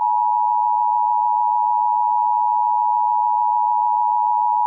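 Emergency Alert System attention tone: one steady, loud electronic alert tone, starting abruptly and held without a break.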